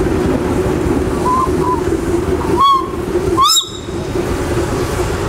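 A steam whistle giving two short toots about a second apart, each rising in pitch as it sounds, over a steady low rumble of engines and showground noise.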